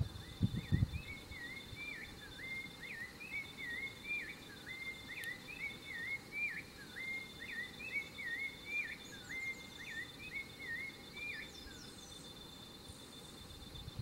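Rufous-bellied thrush singing: a steady run of short fluted whistled phrases, each a quick rising and falling figure, going on for about ten seconds and stopping near the end. A steady high insect trill runs underneath.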